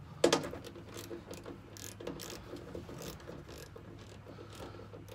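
Small hand ratchet clicking in short, irregular strokes as a screw holding a plastic fender flare to the wheel arch is driven in. A single sharp snap, the loudest sound, comes just after the start.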